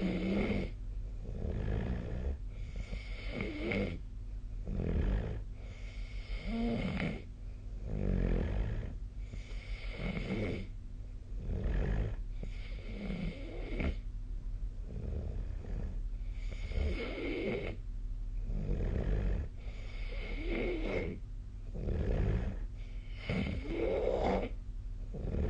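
A person snoring in sleep: a steady rhythm of rasping snores, one every one to two seconds, each rising and fading with the breath.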